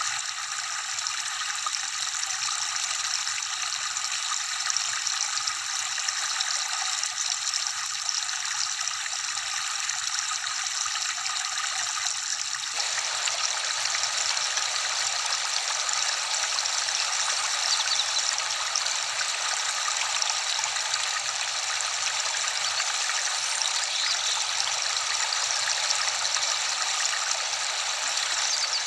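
Steady rushing of water falling at a waterfall. About halfway through the sound shifts suddenly, becoming fuller and reaching a little lower.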